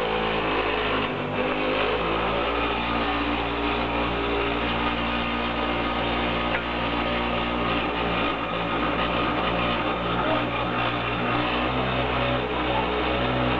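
Semi-automatic three-tank polyurethane glue dispensing machine running, a steady machine hum holding several steady tones as it dispenses glue.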